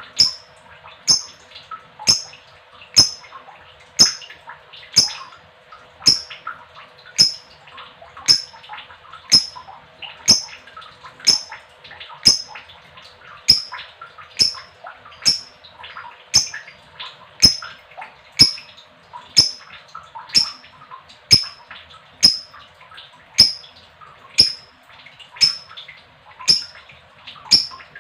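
Female lovebird chattering, with a sharp, high-pitched call repeating about once a second over continuous lower chirping.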